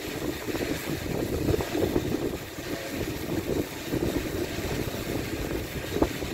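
Large multirotor drone hovering in strong, gusty wind, holding position in loiter mode, its propellers droning steadily under gusts of wind buffeting the microphone. A brief sharp thump comes near the end.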